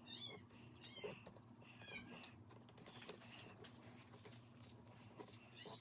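A cat making several short, high, faint mews spread a second or so apart, with light clicks and ticks of handling in between.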